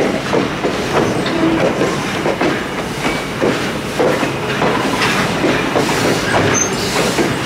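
Railroad passenger cars rolling along the track, the wheels clacking irregularly over rail joints above a steady rumble.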